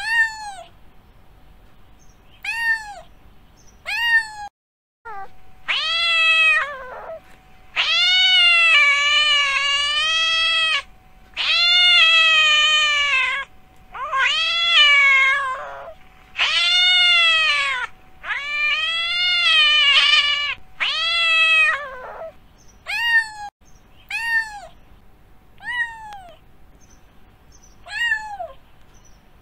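Domestic cat meowing: a few short falling meows, then a run of long drawn-out, rising-and-falling yowling meows, then short meows again near the end. A faint steady hum sits under the long calls.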